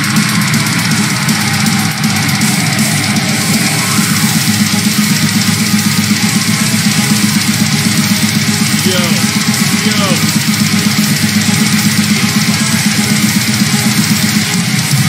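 Heavy metal music playing: distorted electric guitars over a fast, dense drum kit.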